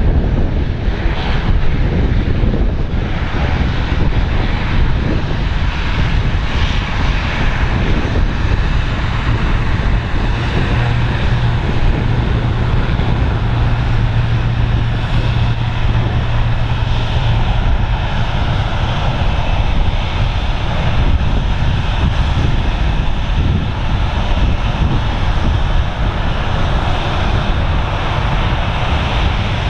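Binter ATR 72-600 turboprop's engines and propellers running, heard through heavy wind on the microphone. A steady low hum stands out for several seconds in the middle.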